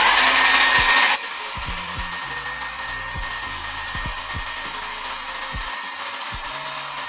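Handheld hair dryer blowing steadily, with a faint steady whine over the rush of air. It is loud for about the first second, then drops to a lower, even level.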